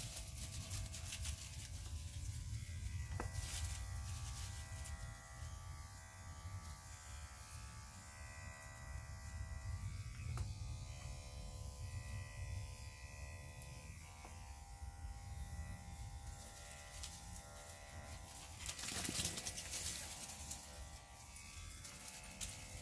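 Electric dog grooming clippers running with a steady buzz as a Great Pyrenees is clipped. A brief louder noise comes a little before the end.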